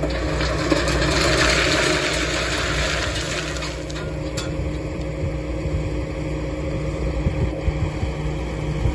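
Engine running steadily under the Elho Scorpio 5500 rock picker as its hydraulically raised hopper slowly tips and dumps its load: a rushing of dirt and stones pouring out swells over the first few seconds and then eases, with a few scattered rattles of stones near the end.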